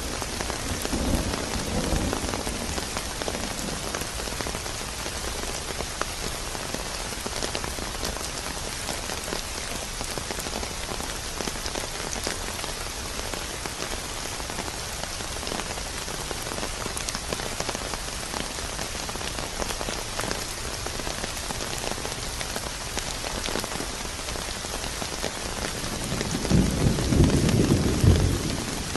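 Steady heavy rain falling. A low rumble of thunder dies away in the first couple of seconds, and another rolls in near the end as the loudest sound.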